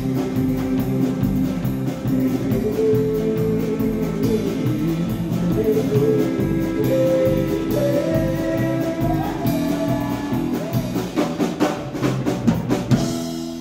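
Live Americana band playing: loud drum kit, bass, guitars and muffled singing, with a clarinet line. Near the end the drums stop and a held chord rings on.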